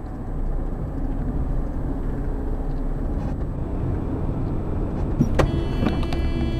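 Car driving along a road, heard from the dashcam inside: steady engine and tyre rumble. A little past five seconds in come a couple of sharp knocks, then a sustained tone with many overtones that carries on to the end.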